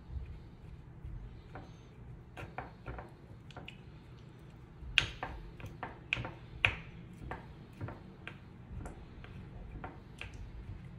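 A spoon stirring and mashing wet cat food in a small ceramic bowl: irregular light clicks and taps of the spoon against the bowl, a few sharper knocks about halfway through.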